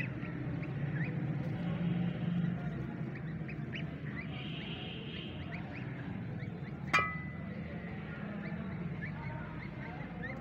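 Newly hatched waterfowl chicks peeping in many short, high chirps over a low steady hum. About seven seconds in there is a single sharp click.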